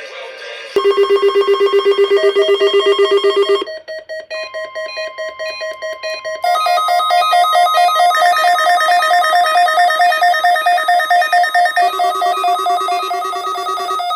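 Electronic ringtone-like tune of rapidly pulsing synthesized notes. It starts about a second in, shifts pitch a few times, and stops suddenly.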